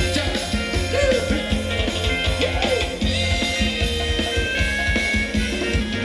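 Live band playing upbeat Thai ramwong dance music with a steady, driving beat.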